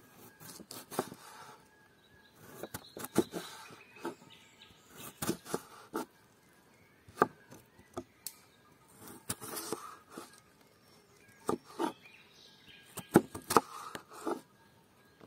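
Knife slicing a raw potato into sticks on a wooden cutting board: crisp cuts and knocks of the blade on the board, in short bunches about every two seconds.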